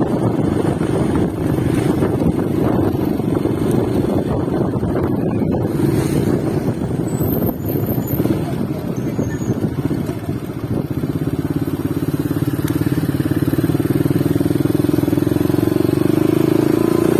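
An engine running steadily throughout. About two-thirds of the way through its note evens out and climbs a little.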